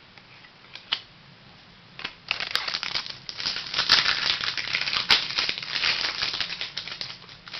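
Trading cards and their packaging handled close to the microphone: a couple of light clicks, then several seconds of dense crinkling and rustling as the cards are shuffled through.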